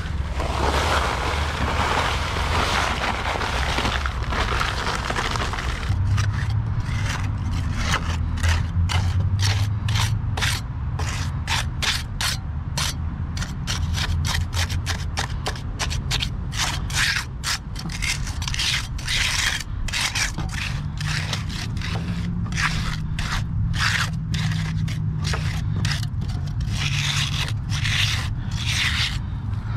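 Small hand trowel scraping and smoothing wet concrete along the base of a wooden fence in many short, quick strokes, the blade grating on the gritty mix.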